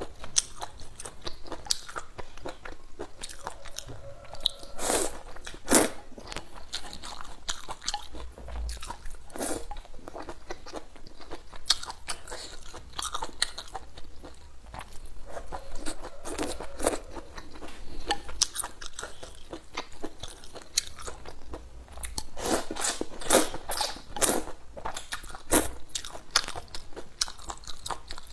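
A person eating spicy noodle soup close to the microphone: wet chewing and crunchy bites. There is a loud cluster of bites about five seconds in and a dense run of them a little over twenty seconds in.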